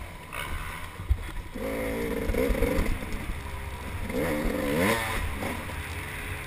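Dirt bike engine revving up and down as it is ridden hard along a rough trail, rising to its highest pitch about five seconds in, over a steady low rumble and occasional knocks from the bumps.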